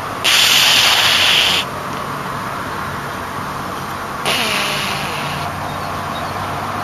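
Someone asleep breathing noisily, snoring: loud hissing breaths about a second long, one about every four seconds, the second weaker than the first, over a steady low hum.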